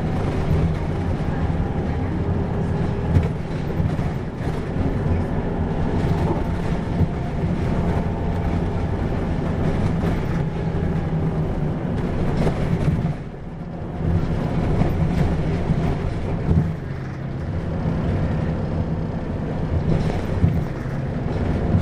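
Isuzu 2PG-LV290N3 city bus with its four-cylinder diesel running under way, a steady low engine and drivetrain drone that dips briefly a little past halfway.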